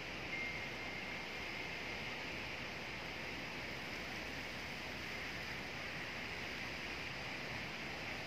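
Wind blowing through tree leaves: a steady, even rustling hiss.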